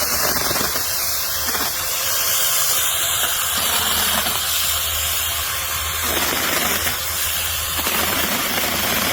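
A cordless brushless 6-inch mini chainsaw running at full speed and cutting through a small branch about an inch thick, with a steady motor hum under the hiss of the chain chewing through wood. The sound shifts a little a few times as the load on the chain changes.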